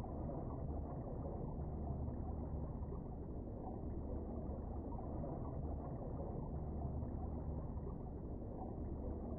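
Steady, muffled underwater rumble, heard through a submerged camera's waterproof housing, with a low hum and nothing bright or sharp in it.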